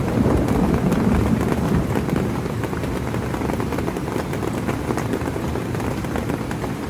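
Heavy rain pouring steadily with scattered drop ticks, over a low rumble of thunder that eases over the first couple of seconds.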